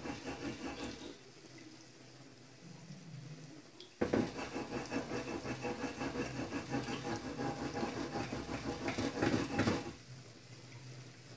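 Gulab jamun frying in oil in a pan over a low flame, a steady sizzle and bubbling. The sizzle is quieter for the first few seconds and louder from about four to ten seconds in.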